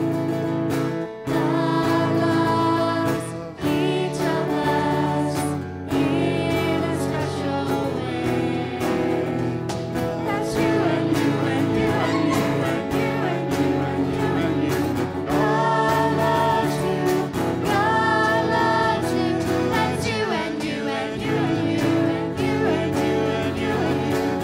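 A live worship band playing an upbeat song with guitar, cajon and drum kit, while a woman and a girl sing the melody into microphones and other voices sing along.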